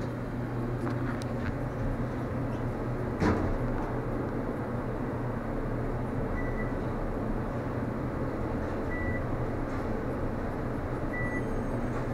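Westinghouse bottom-drive elevator car running down with a steady hum. The doors shut with a knock about three seconds in, and three short high beeps sound a few seconds apart as the car travels.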